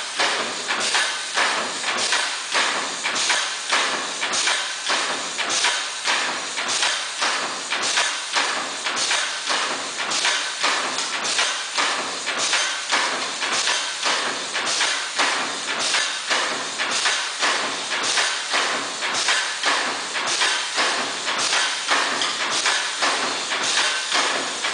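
YCH-6000B card hot stamping machine running: a steady rhythm of mechanical clacks, about two a second, mixed with air hiss as it feeds and stamps PVC cards.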